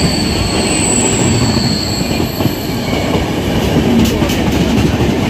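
Two passenger trains, the Intercity Express and the Saurashtra Mail, passing each other at speed on adjacent tracks, heard from an open coach door. A loud, steady rush of wheels on rails carries a thin high wheel whine, with a few sharp rail clicks about four seconds in.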